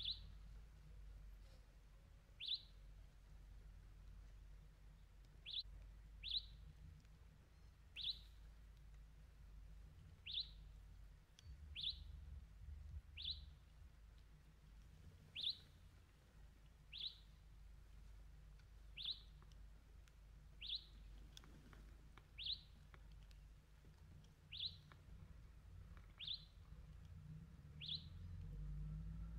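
A bird calling one short, high, falling note over and over at a steady pace, about every one and a half to two seconds.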